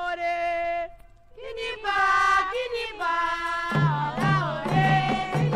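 Candomblé chant from an old LP: a solo voice sings a held line, breaks off briefly about a second in, then starts a new phrase. A little over halfway through, a fuller, denser accompaniment comes in beneath the voice.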